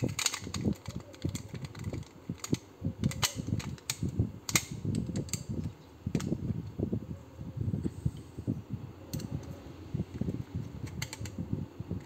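Plastic cover and faceplate of a surface-mount dimmer switch box being fitted back on by hand: irregular clicks and taps of plastic parts snapping and knocking together, over handling noise.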